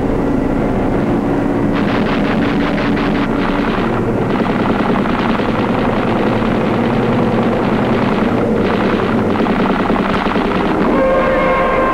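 Battle sound effects: dense automatic gunfire in rapid rattling bursts, heaviest a couple of seconds in, over a steady aircraft-engine drone. A few held musical notes come in near the end.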